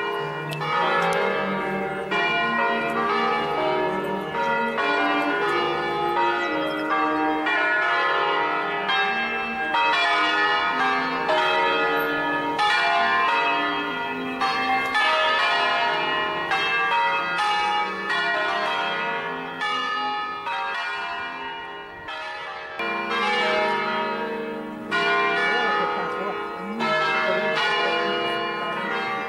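Five-bell church peal in E-flat from the tower of Sant'Agata, rung in the traditional scale sequences, strikes overlapping continuously. It comes in suddenly at the very start.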